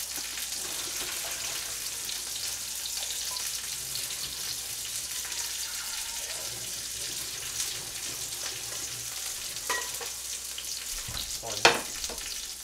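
Frozen king dumplings sizzling steadily in an oiled frying pan. A light metal clink near ten seconds in and a loud metal clank near the end.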